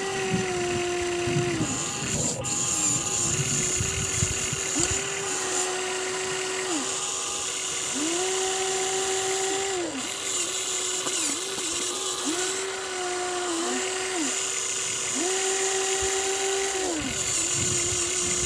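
Electric motors of a Huina 1593 RC excavator whining in repeated runs of one to two seconds, each run rising quickly to a steady pitch and dropping away as it stops, with short blips between as the controls are worked.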